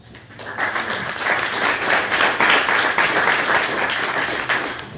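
Small audience applauding, the clapping swelling over the first second and fading out near the end.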